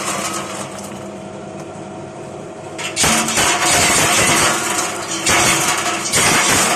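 Candlenut shell-cracking machine running with a steady mechanical hum, while cracked candlenuts and shell pieces rattle out of its metal chute. The clattering grows much louder about three seconds in.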